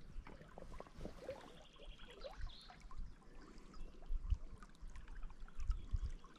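River water trickling and lapping, with small splashes and a few low thumps.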